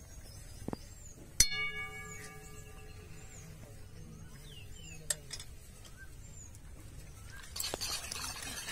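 A metal utensil strikes the metal karahi once, a sharp clink that rings on for about a second. Near the end, a wire hand whisk starts stirring milk and custard powder in the pan.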